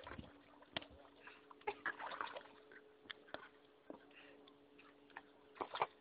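Faint scattered ticks and small sloshes of water as a man steps about in shallow river water, over a faint steady hum.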